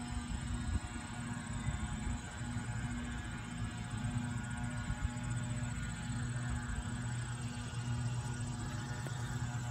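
A steady low buzzing hum that swells and fades, over an uneven low rumble.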